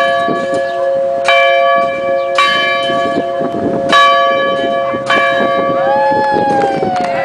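A heavy 640-pound cast-iron school bell from 1886, swung by rope, clangs four times about a second apart, a little irregularly. Each strike rings on over a steady hum that never dies away between strokes. Near the end a higher tone slides downward over the hum.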